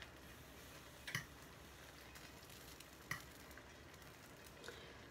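Near silence broken by two light clicks about two seconds apart: a metal fork touching the pan as boiled ramen noodles are lifted to keep them from sticking.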